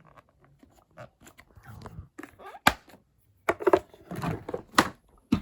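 Hard plastic of a Numatic Henry vacuum cleaner being handled as it is opened: irregular sharp clicks and knocks with rustling and scraping, as the clips are undone and the motor head is lifted off the tub to reach the filter.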